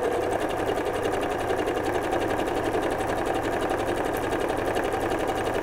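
Electric domestic sewing machine running steadily at speed, stitching a straight seam through two layers of cotton patchwork squares with a fast, even rhythm of needle strokes.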